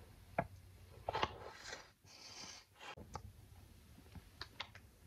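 Faint sounds of eating an ice cream cone: a few soft crunches and clicks of chewing, with brief rustles of the plastic wrapper.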